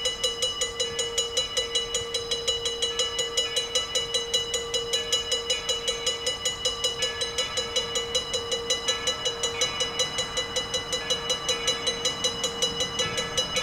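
Railroad grade-crossing warning bell ringing rapidly and evenly, a sign that a train is approaching the crossing.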